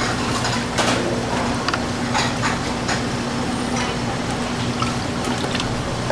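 Metal slotted ladle scraping and clinking against a stainless steel pot while rice cakes are scooped out of syrup, with some sloshing of liquid. Scattered sharp clinks sit over a steady low hum.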